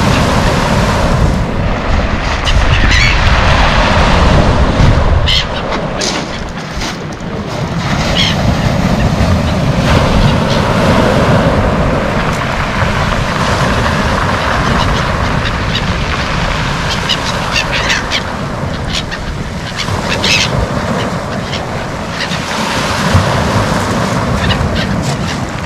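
A flock of gulls calling in short, scattered squawks, bunched in two spells, over steady breaking surf on a pebble shore.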